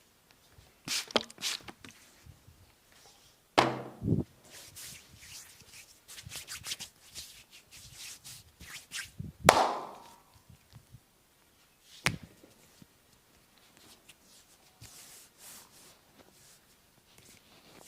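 Hands massaging bare skin: brushing, rubbing strokes broken by a few sharp slaps, the loudest about two-thirds of the way in.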